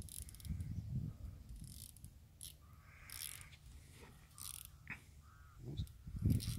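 Fishing reel and tackle being handled as a hooked fish is brought to the net: scattered clicks and rustles over a steady low rumble, with a brief bird call about five seconds in.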